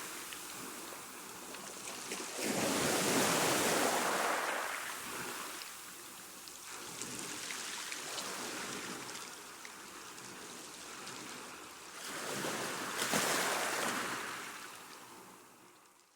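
Choppy sea washing in: a surging hiss of water, with two large waves swelling and breaking, the second about twelve seconds in, then fading away at the end.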